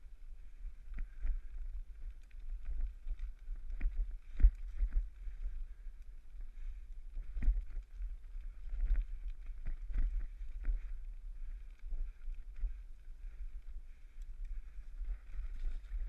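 Bicycle rattling and knocking as it rides over a bumpy dirt woodland trail, over a steady low rumble of wind and tyres on the camera's microphone. The knocks are irregular, and a sharp one about four and a half seconds in is the loudest.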